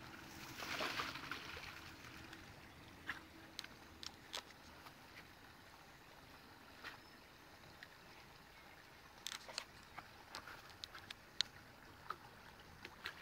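Faint water sounds of a dog swimming and paddling in a creek, with a louder splashy burst about a second in. Scattered light clicks and rustles follow, more of them near the end.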